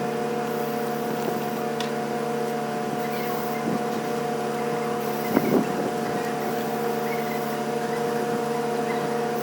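Renault Dokker engine running at a steady idle, with one short knock about five seconds in.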